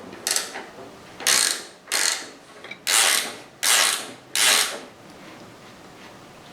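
Hand ratchet wrench being worked in about six quick strokes, each a short burst of pawl clicking, before it stops near the end.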